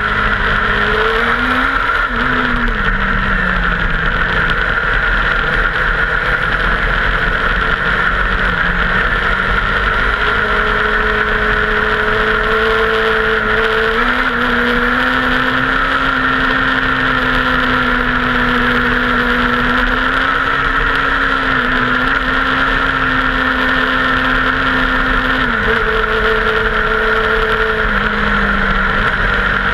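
Dirt-track race car's engine running at part throttle, heard from inside the cockpit. Its pitch rises and falls a few times as the throttle changes, over a constant loud rushing noise.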